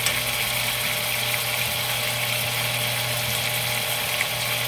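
Hot cooking oil sizzling steadily as food fries in it, an even, unbroken hiss, with a steady low hum underneath.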